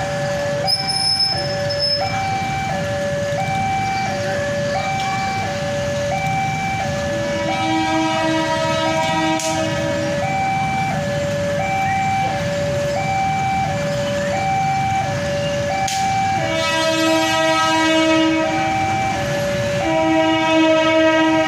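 Railway level-crossing warning alarm alternating between two tones, switching about twice a second, over a low rumble of waiting traffic. An approaching CC 201 diesel locomotive sounds its horn in three long blasts, the last running on past the end.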